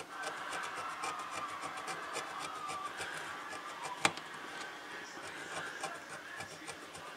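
Repeated short scratching strokes of a tool scraping the green solder-mask enamel off the copper traces of a circuit board, with one sharp click about four seconds in.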